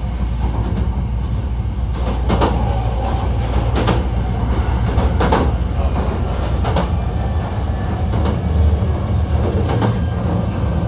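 Hankyu 1300-series electric train running between stations, heard from inside the car: a steady low rumble of wheels on rail, with sharp rail-joint clicks about every second and a half. A faint, thin, high squeal comes in about halfway through.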